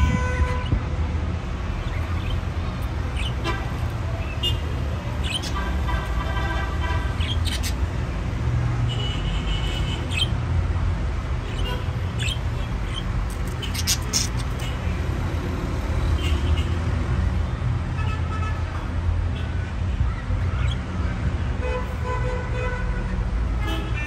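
Steady low rumble of road traffic, with vehicle horns tooting now and then and a few short high chirps.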